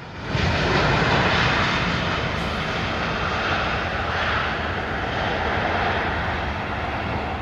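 Airliner jet engines running, a steady wash of engine noise that swells in over the first half-second and then holds.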